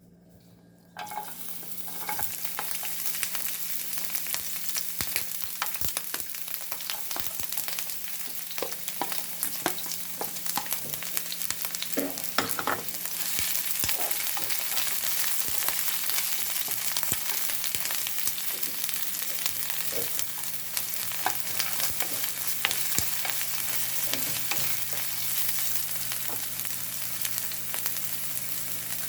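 Stir-fry sizzling in hot oil in a pan. It starts suddenly about a second in as the food hits the pan, then keeps going while it is stirred, with the clicks and scrapes of a utensil against the pan.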